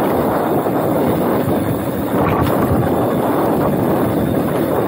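Steady wind rush on a chest-mounted action camera's microphone, mixed with the rumble and rattle of mountain bike tyres running fast over a rough dirt trail.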